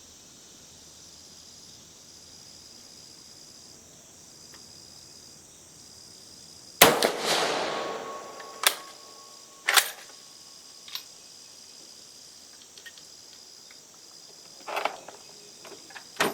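A single shot from a Carcano M91TS carbine about seven seconds in, ringing out for over a second, followed by several sharp metallic clicks of the bolt being worked. Crickets chirp steadily throughout.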